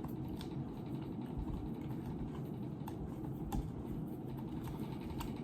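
A steady low hum with a few faint, scattered clicks of a screwdriver and a plastic housing being handled.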